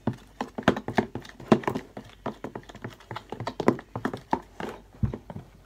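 Metal spoon stirring a slime mixture in a clear plastic tub, clicking and knocking against the tub's sides and bottom in an irregular run of taps, a few a second. One dull bump near the end.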